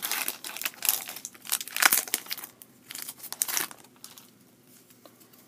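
Foil Pokémon booster pack wrapper crinkling as it is torn open: a dense run of sharp crackles that dies away about three and a half seconds in.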